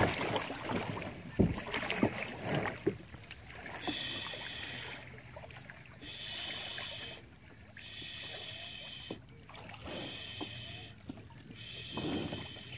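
Kayak paddling on a river: paddle strokes in the water and sharp knocks of the paddle against the plastic hull in the first few seconds. After that, a high buzzing call repeats five times, each about a second long, roughly every two seconds.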